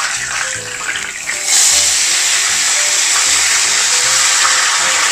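Potato-starch-coated chicken breast deep-frying in a pan of hot oil at about 170 °C, sizzling steadily with a dense hiss that gets louder about a second and a half in.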